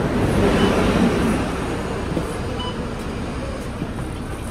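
Public bus engine running with road traffic noise while passengers board, louder for the first second or so and then easing. Two short high beeps come from the bus's fare card reader as cards are tapped, one early and one past halfway.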